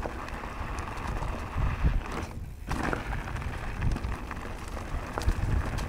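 Mountain bike rolling fast down a dirt trail: tyre and wind rumble on the camera microphone, with low thumps and light rattles as it runs over small bumps and rocks.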